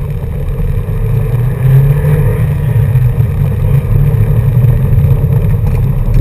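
Rally car's engine running hard as the car drives fast over a gravel road, heard from inside the cabin along with road noise.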